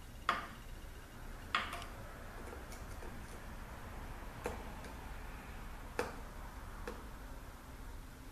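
Light metallic clicks and taps, about five of them spaced a second or more apart with a few fainter ticks between, from hand work on small metal parts of a 42RLE transmission, freeing an accumulator's small snap ring.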